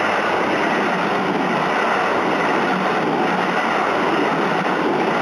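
Kintetsu Nara Line electric train running past, a steady noise of wheels on the rails.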